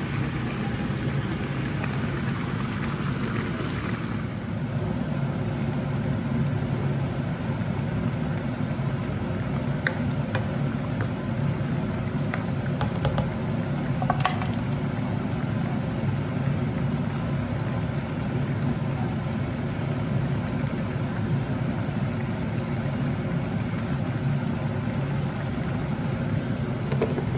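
Chicken in sauce simmering in a frying pan on an induction hob, over a steady low whir. A few sharp clicks come about ten to fourteen seconds in.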